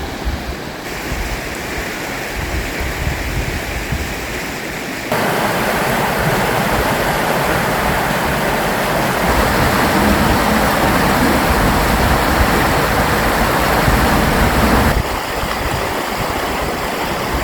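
Steady rush of falling or running water, an even hiss over a low rumble. It gets louder about five seconds in and drops back near the end, in abrupt steps.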